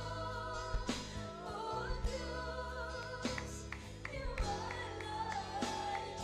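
A mixed choir singing a Tagalog worship song over band accompaniment, with sustained sung notes, a steady bass line and regular drum hits.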